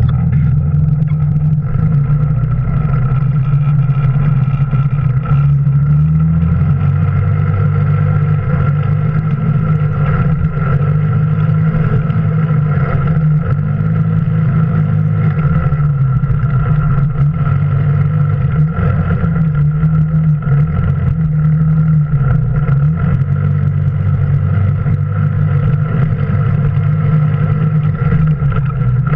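Engine of an off-road vehicle under way, heard close up from the vehicle itself, its low drone wavering up and down with the throttle over rough ground, with a steady whine above it.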